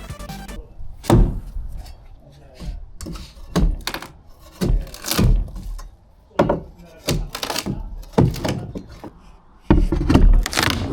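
Old wooden decking boards being prised up and handled: a string of irregular heavy thunks and knocks of timber, a few seconds apart, with a cluster of them near the end.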